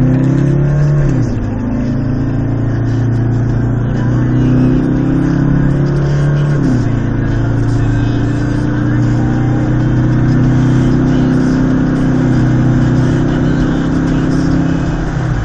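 Car engine heard from inside the cabin under hard acceleration. Its pitch climbs and drops sharply at two upshifts, about a second in and again near seven seconds, then climbs slowly at highway speed.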